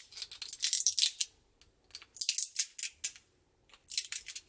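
Support material being picked and broken out of the middle of a freshly 3D-printed plastic part: a dry crackling and snapping in several short bursts.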